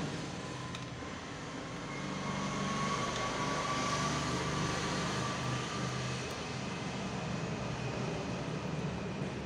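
Steady engine-like background drone of machinery, with a faint whistling tone over it.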